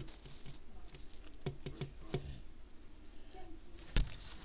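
A few light clicks and taps, clustered around the middle, then one sharper knock near the end.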